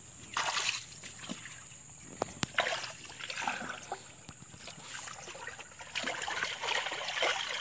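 Shallow swamp water splashing and sloshing in irregular bursts as a person wades through it and sweeps a dip net through submerged grass and leaf litter. A couple of sharp clicks come about two seconds in, and the splashing grows busier near the end as hands scoop through the water.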